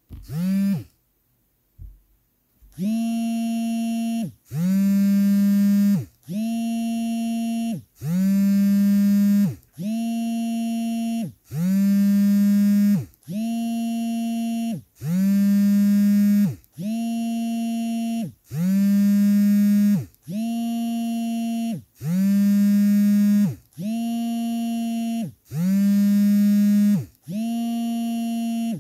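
Vibration motors of Samsung Galaxy A53 and A73 phones buzzing for an incoming call on vibrate: a steady run of buzzing pulses about a second and a half long with short gaps, alternating louder and quieter, each rising briefly in pitch as it starts. The buzzing begins about three seconds in.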